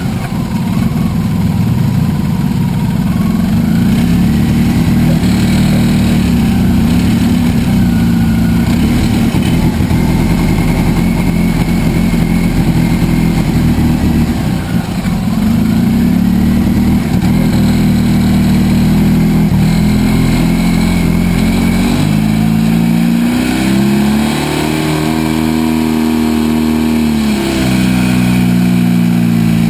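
Off-road vehicle engine running as it is ridden over sand, its pitch shifting with the throttle. About three-quarters through it revs up higher, holds, then drops back down.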